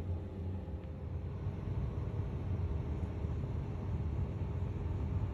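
Steady low rumble with a faint hiss over it, even throughout, with no distinct events.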